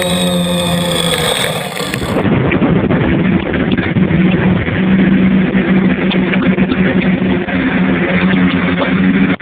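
Electric motors and propellers of an FPV multirotor in flight, a steady pitched buzz. About two seconds in the sound changes to a duller one with heavy wind rush over the buzz.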